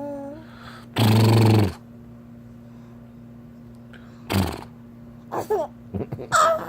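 A dog and a person making sounds back and forth: one loud, low drawn-out vocal sound about a second in, then several short wavering whines and howl-like calls near the end.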